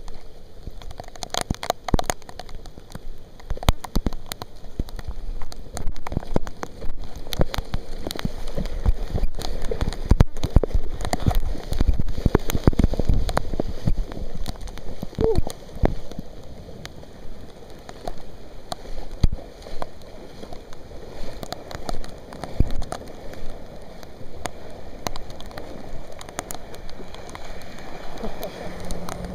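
Heavy rain falling, with many irregular raindrop hits close to the microphone over a steady hiss of rain. The hits grow denser and louder for a few seconds a little before the middle.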